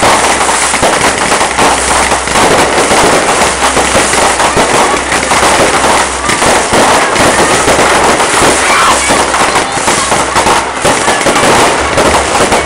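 Fireworks finale: a dense, continuous barrage of overlapping crackles and bangs from many shells and firecrackers going off in rapid succession.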